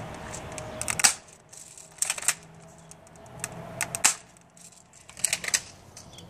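Airsoft M16-style rifle firing single shots: a string of sharp snaps, some in close pairs, the loudest about a second in.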